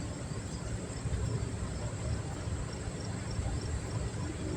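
Steady outdoor background: insects trilling, high and constant, over a low rumble.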